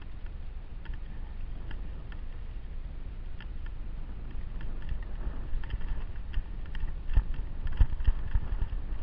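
Travel along a stony mountain trail heard from a jolting camera: a steady low rumble with scattered clicks and rattles of stones and gear. The clicks thicken about halfway through, and a few louder thumps come around seven and eight seconds in.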